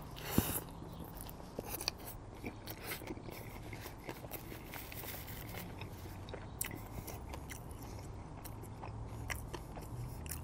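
Close-miked mouth sounds of a Burger King Whopper being eaten: a soft bite into the sesame bun about half a second in, then steady chewing with many small wet clicks.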